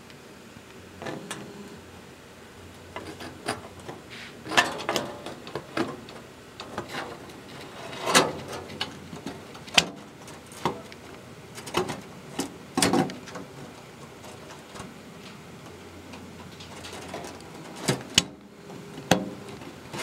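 Window blinds rattling and clacking: irregular clicks and knocks scattered throughout, a few of them sharp and loud.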